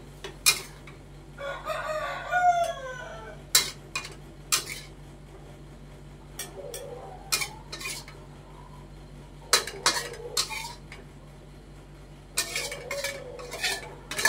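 A metal spatula clanks and scrapes against an aluminium wok in sharp, irregular strikes as morning glory is stir-fried and scooped out. A rooster crows once about two seconds in.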